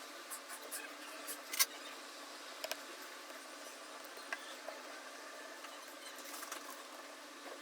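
Faint steady hiss with a few small, sharp clicks and taps, the loudest about one and a half seconds in: small metal tools handling tiny screws and parts during iPhone reassembly.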